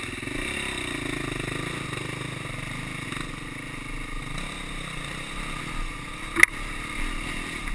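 Honda CRF250X dirt bike's single-cylinder four-stroke engine running steadily while riding slowly along a dirt trail, with one sharp knock about six seconds in.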